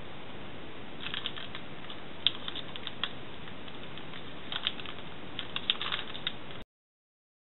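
Gel pen tip poking dots through pattern paper: an irregular run of light clicks and taps over a steady hiss, cutting off abruptly shortly before the end.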